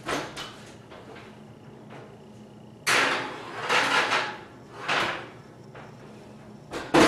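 Kitchen clatter of cookware being handled: a short burst at the start, a run of scraping rattles in the middle and a sharp knock near the end.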